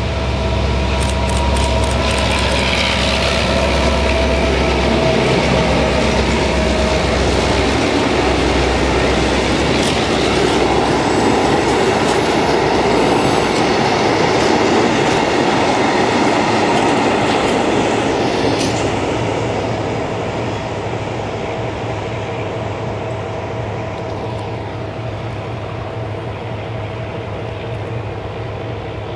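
A class 664 diesel-electric locomotive drawing a train past. Its engine note is strongest at first, with a brief high wheel squeal about two seconds in. The rumble and clatter of a passenger coach and flat wagons rolling over the rail joints follows, and the sound drops after about twenty seconds to a quieter, steady diesel hum.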